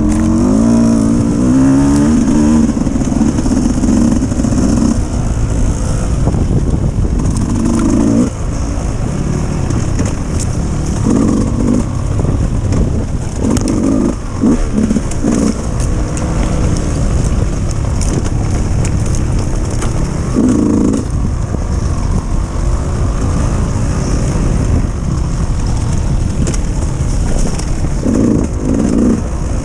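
Dirt bike engine running and revving in repeated bursts over a steady low rumble.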